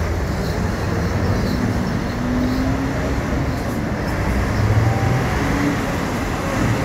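Heavy Mercedes-Benz diesel trucks running and pulling past, a loud, steady engine rumble with road noise. The rumble swells briefly about five seconds in.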